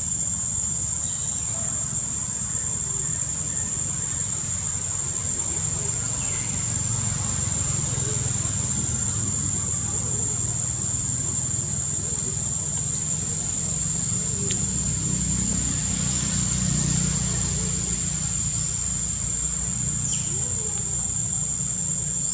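Insects droning steadily on one high, unbroken pitch, over a constant low rumble, with a few faint short chirps or calls now and then.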